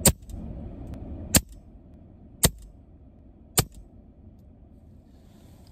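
EDgun Leshiy 2 PCP air rifle fired four times in quick succession, about one shot a second, each a sharp crack with a faint click just after it.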